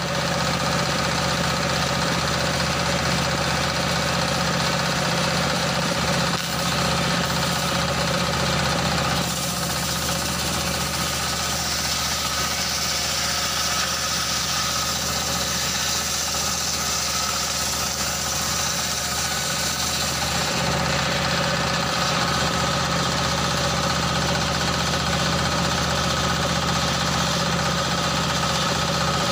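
Stationary single-cylinder diesel engine running steadily, belt-driving a circular saw. From about ten seconds in until about twenty seconds in, the blade rips lengthwise through a log, adding a loud high hiss over the engine.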